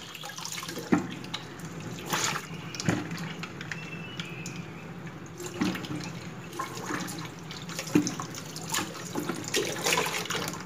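Kitchen tap running into a stainless steel sink while peeled tubers are rinsed by hand, with splashing and occasional knocks as pieces are handled.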